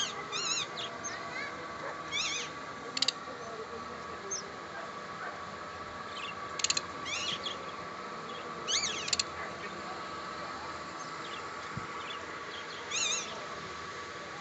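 Caged show birds giving shrill calls, each under half a second and wavering up and down in pitch, with a few very short sharp squawks, coming irregularly every second or few seconds.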